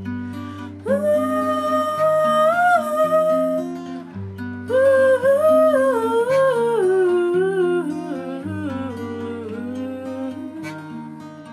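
Acoustic guitar playing chords under a young woman's voice. The voice holds a long note from about a second in, breaks off briefly, then sings a slowly falling melodic line.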